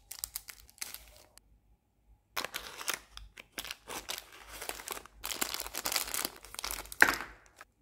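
Chocolate wrappers and packets being opened by hand: foil and plastic crinkling and tearing in irregular bursts, with a short pause about two seconds in and one sharp, louder crackle near the end.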